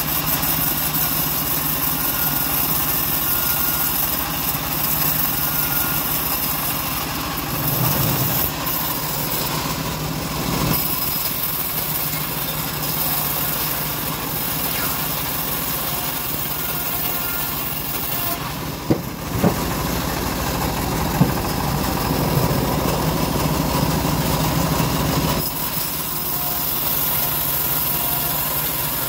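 Homemade band sawmill running with a steady machine hum as its blade rips a teak board lengthwise. A few short sharp knocks come a little past the middle.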